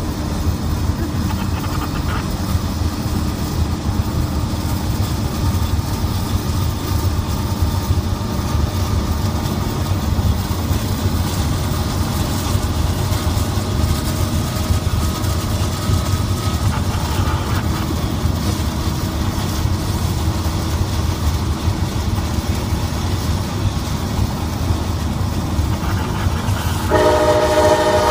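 Steady low road and rail rumble heard from inside a moving car's cabin, with a Norfolk Southern freight train running alongside. Near the end a locomotive horn sounds, one chord held for over a second.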